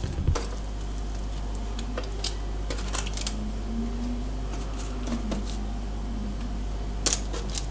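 Faint scattered taps and light clatter of baked vegetable slices being laid into a baking tray, over a steady low hum.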